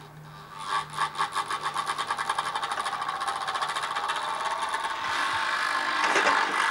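Motor-driven gyroscopic anti-gravity device running up: a mechanical beat that quickens steadily and merges into a continuous whirr about five seconds in.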